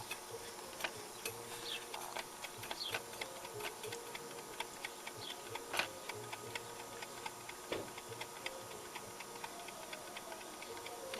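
Irregular small clicks and ticks from an Onkyo PL-25F turntable's tracking mechanism as it is worked by hand with the power on, over a faint steady hum. The mechanism is stiff with old, sticky grease.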